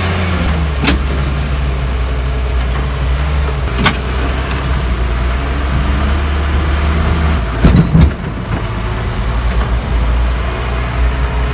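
A heavy diesel engine runs steadily, with its pitch shifting about 7.5 s in. Sharp knocks or clanks sound about 1 s, 4 s and 8 s in.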